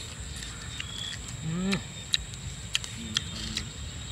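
A person eating grilled lobster: sharp clicks and smacks of biting and chewing, with a short rising hummed "mmm" about one and a half seconds in.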